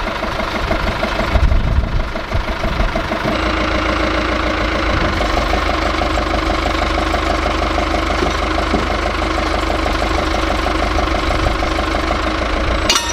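Telehandler's diesel engine idling steadily while its boom holds the tractor cab, the note shifting about three seconds in. A sharp knock comes near the end.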